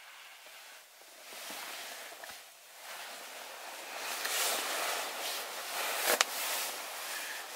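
Uneven rustling that swells and fades several times, with one sharp click about six seconds in.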